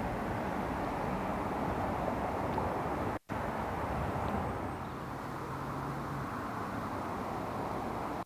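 Steady low outdoor background rumble, with a faint steady hum for a few seconds in the middle, broken by a brief silent gap about three seconds in.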